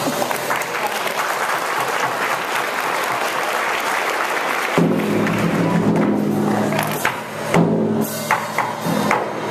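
Audience clapping for about five seconds, then recorded music with drums and percussion starts up and plays on.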